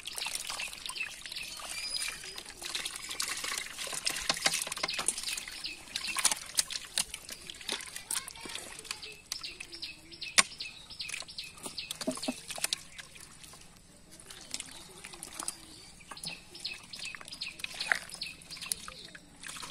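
Hands and a steel bowl squelching and sloshing through thick, watery mud, with irregular wet slaps and splashes.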